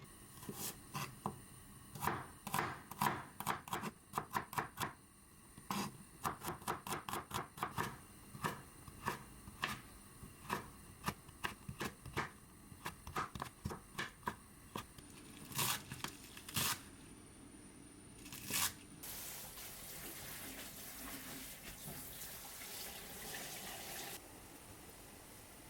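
Knife chopping vegetables on a cutting board in quick runs of strokes, with a few louder single knocks, then a steady rush of running water for about five seconds near the end.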